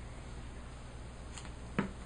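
Quiet desk handling as washi tape is cut and laid with scissors: a faint click, then one sharper tap near the end, over a steady low hum.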